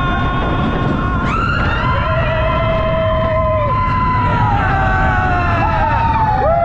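Several riders screaming together, long held cries that rise and fall in pitch, over the steady low rumble of the Expedition Everest roller coaster train running on its track.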